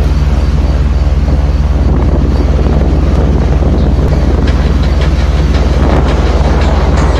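Motorbike riding along a street: a steady low engine drone with wind buffeting the microphone.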